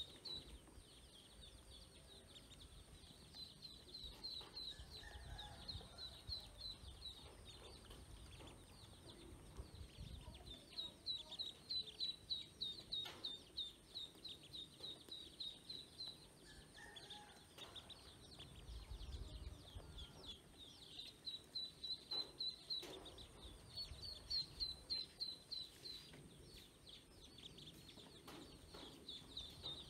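Ducklings peeping: bouts of fast, high-pitched peeps, several a second, broken by short pauses.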